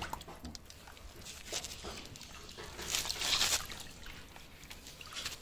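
Water splashing and sloshing in a plastic basin as a baby vervet monkey is bathed, with the loudest splashing about three seconds in.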